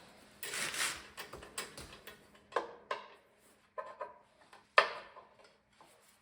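Hand tools clanking on the tractor's metal as bolts are worked loose: a short scrape about half a second in, then several sharp metallic clanks, some ringing briefly, the loudest a little before five seconds in.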